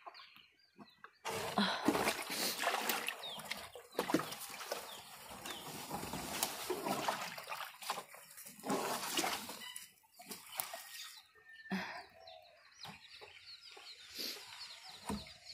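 Muddy water sloshing and splashing in a plastic pig water tub as it is pulled out and tipped out, busiest over the first ten seconds and thinning to scattered knocks near the end.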